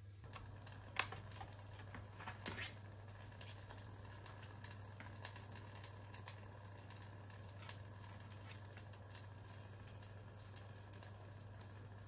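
Scattered light clicks and taps over a steady low hum, the sharpest tap about a second in.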